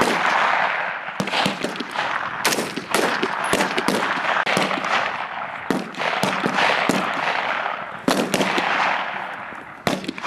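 Many rifles firing together on a range: irregular, overlapping shots, about two or three a second, each ringing out with a long echo.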